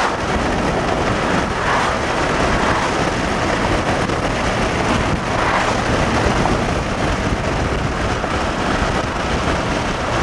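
Steady rushing noise of wind and a car heard from inside the vehicle, a dense even rumble with no distinct events.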